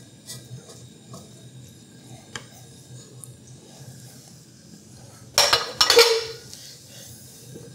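A utensil stirring in an enameled cast iron Dutch oven: faint scraping and small clinks against the pot, then two loud scrapes or clanks about five and six seconds in.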